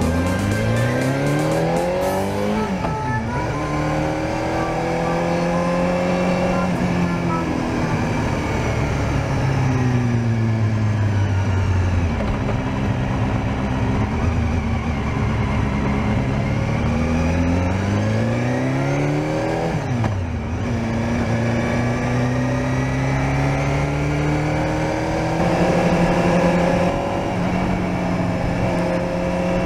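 Honda CBR250R (MC19) 250 cc inline-four engine under way, its pitch climbing through the revs with sudden drops at gear changes (about 3 s and 20 s in) and slower falls while slowing in between.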